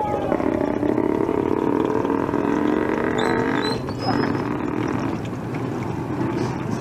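Kwek-kwek (battered quail eggs) deep-frying in a wide pan of hot oil, a steady sizzle, over the low hum of a motor engine.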